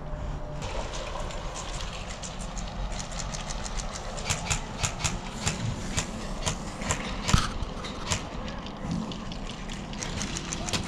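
Scattered sharp cracks and clicks of airsoft gunfire and BBs striking plywood walls, irregularly spaced, the loudest about seven seconds in, over a steady low rumble.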